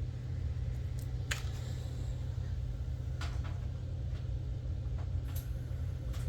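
A few light clicks and taps from small gear being handled, scattered over a steady low hum.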